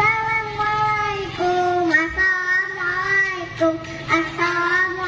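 Young children singing a melody together in long held notes, each note lasting about a second before the pitch moves on.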